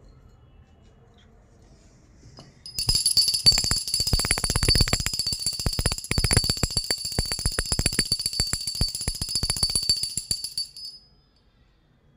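Puja hand bell rung rapidly for aarti, starting about three seconds in and stopping near eleven seconds: a steady high ringing over a fast clatter of clapper strikes.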